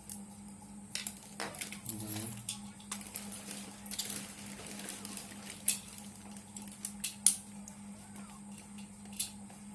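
Scattered clicks, taps and rustling from small parts and tools being handled on a workbench during a power-supply repair, with two sharper clicks past the middle, over a steady low hum.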